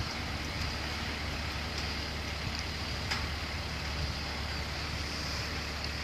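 Engine of a Manitou lifting machine running steadily at idle as a low hum under wind noise, with a few faint clicks about two to three seconds in.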